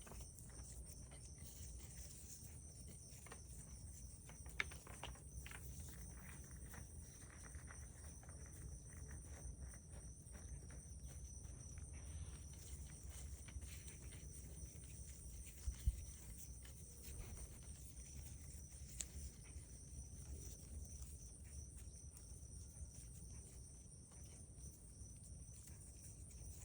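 Insects trilling steadily in the background, a constant high pulsing chirr, over a low outdoor rumble. A few sharp clicks and soft knocks from handling the plant and soil, the loudest about sixteen seconds in.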